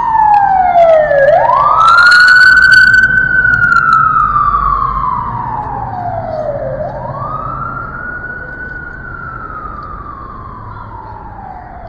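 Emergency vehicle siren on a slow wail: each cycle climbs quickly and then slides slowly down over about five seconds, repeating twice. It is loud at first and grows steadily fainter.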